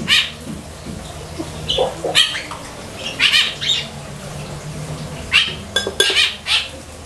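Rooster giving a series of short, harsh squawking clucks, one every second or so.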